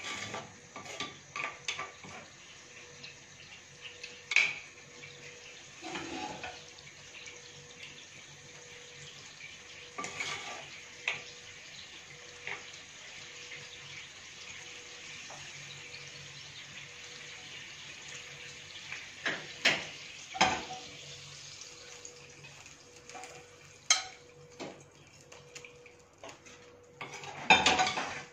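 Dishes, pots and cutlery clinking and clattering at irregular moments, with a dense burst of clatter near the end, over a steady background hiss.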